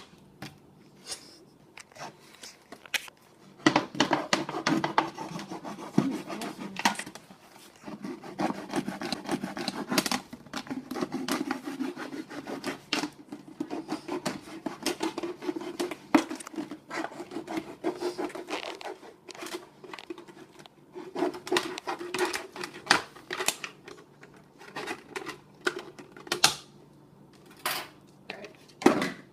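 Plastic water bottles being handled and worked by hand: irregular crinkles and clicks, with several long stretches of plastic scraping and rubbing.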